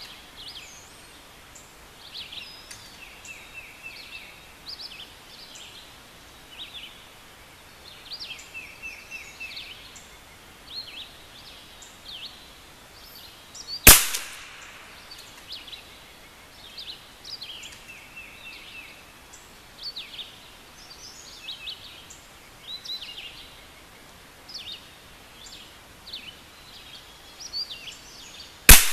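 Two single shots from a Vudoo V22 .22 LR rimfire rifle, about 15 seconds apart, the second near the end. Between them, birds chirp and trill.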